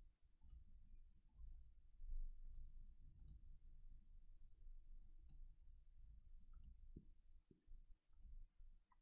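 Near silence broken by faint, short, sharp clicks at irregular intervals of about a second or two, like a computer mouse being clicked.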